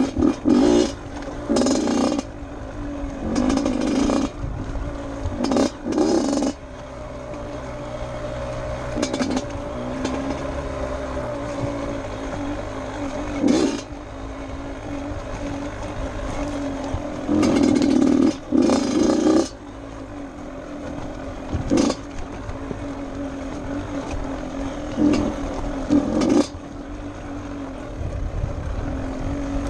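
Dirt bike engine running on a trail ride, with the revs rising in short throttle bursts several times; the loudest bursts come near the start and a little past halfway.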